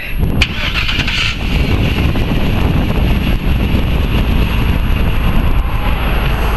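Chevrolet Silverado 2500HD's 6.0 Vortec V8 starting about half a second in, then running at a steady idle with a low rumble.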